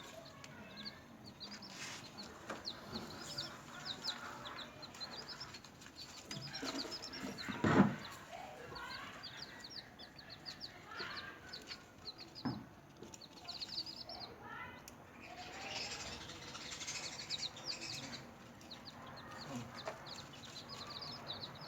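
A group of newly hatched chicks peeping continuously in runs of rapid, high-pitched chirps. A loud knock sounds about eight seconds in, and a smaller one at about twelve and a half seconds.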